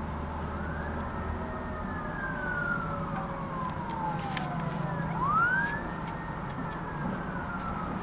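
Emergency-vehicle siren wailing, low in volume: a slow rise, a long slide down in pitch, then a quick sweep back up a little after five seconds and another slow fall.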